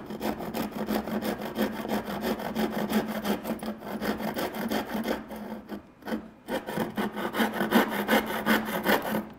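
Wood being cut with a long, coarse-toothed handsaw: steady, rapid back-and-forth strokes, breaking off briefly about six seconds in and then resuming. The cut is nearly through.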